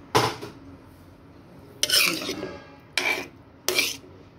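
A metal spoon stirring garden cress seeds swollen in coconut milk, scraping against the bottom of the metal pot in four short strokes.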